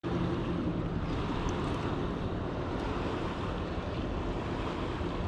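Steady noise of wind and water around a small fishing boat.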